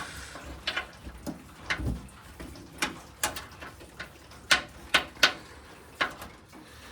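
A bolt and steel hitch hardware clinking and knocking against the truck frame as they are handled and tried in a hole, in a series of sharp irregular taps with one duller thump about two seconds in.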